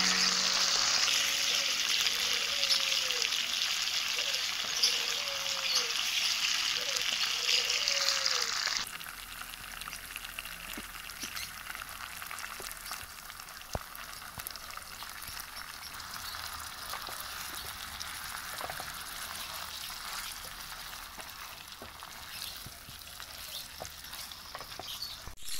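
Chili spice paste sizzling as it fries in hot oil in a stainless steel pan, stirred with a wooden spatula. About nine seconds in, the sizzle drops suddenly to a quieter, softer frying as shredded boiled fish is stirred through the sauce.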